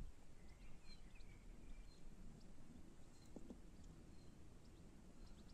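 Near silence outdoors with faint, scattered bird chirps, and a couple of soft handling clicks about three and a half seconds in as morel mushrooms are taken from a jacket pocket.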